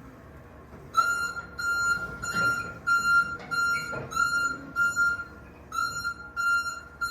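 Toyota 7FBR18 electric reach truck's warning beeper sounding a steady high beep about twice a second, starting about a second in, while the truck moves.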